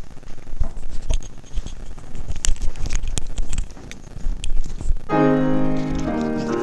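A few scattered knocks and bumps from a handheld microphone being handled. About five seconds in, a piano introduction to a gospel song starts with held chords.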